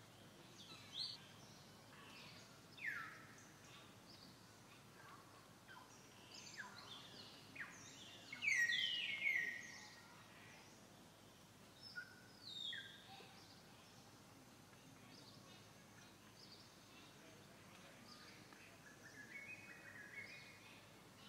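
Faint forest ambience with scattered bird calls: short falling chirps here and there, the loudest a burst of descending calls about eight to ten seconds in, and a quick run of chirps near the end.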